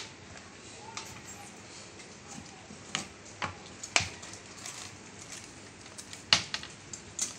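Scattered clicks and knocks of a plastic toffee jar being handled on a wooden shop counter, its lid off and toffees being picked out; about half a dozen separate knocks, the loudest about six seconds in.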